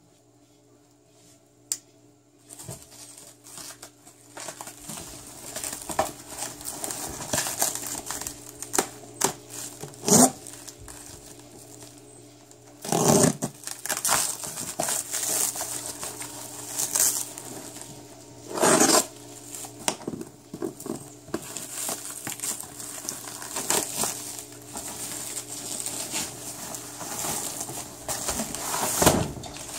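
Black plastic wrap being cut open with a knife, then torn and crinkled off a cardboard box. It starts a couple of seconds in, with several loud rips among steady crinkling.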